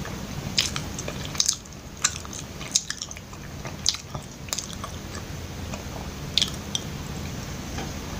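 Close-miked chewing of soft, sticky glutinous rice kuih, with sharp wet mouth clicks and smacks coming irregularly about once a second.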